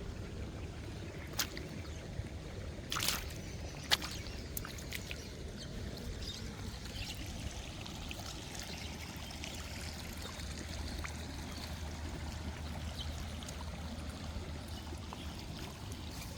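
Water trickling and splashing steadily, with a few sharp clicks in the first four seconds.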